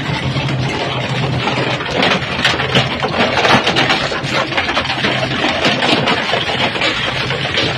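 Crusher machine running with a steady motor hum, with rapid cracking and crunching as material breaks up in it, busiest from about two seconds in.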